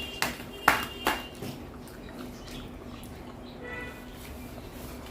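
Three sharp knocks or clicks in quick succession in the first second and a half, the middle one loudest, over a faint steady hum.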